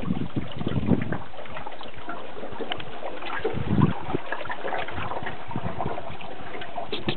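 Water splashing and lapping around a kayak as it is paddled, with scattered small knocks and a low thump about four seconds in.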